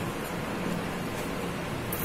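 Gas stove burner hissing steadily under a steel pot of water.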